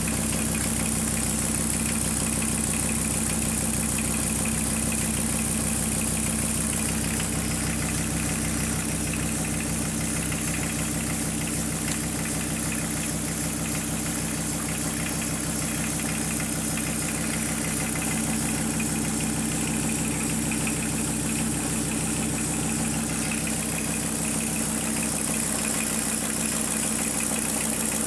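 Volkswagen T4's 2.4-litre AAB five-cylinder diesel engine idling steadily.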